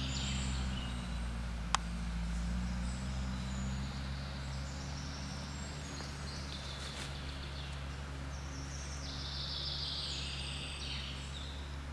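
Off-road pickup truck's engine running low and steady as it crawls uphill, with birdsong high above it and one sharp click about two seconds in.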